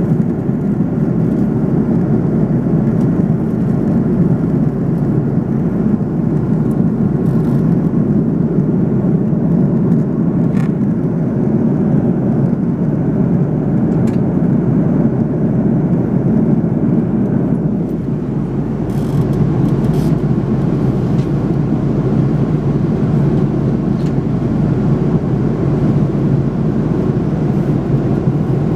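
Steady cabin noise of a jet airliner in cruise: an even, deep rush of engines and airflow heard from inside the cabin.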